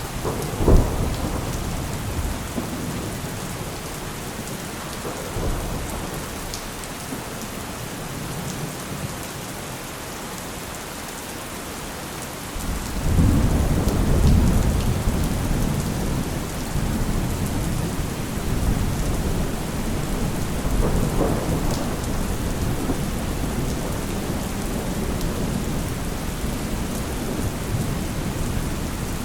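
Steady rain with thunder: a sharp crack of thunder just under a second in, then a long low rumble that swells up about halfway through and keeps rolling to the end.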